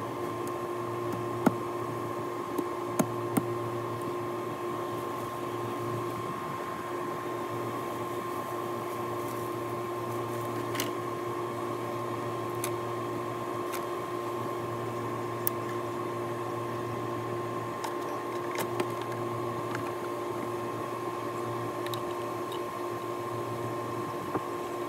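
Steady machine hum with a constant whine over it, and a few faint clicks in the first few seconds.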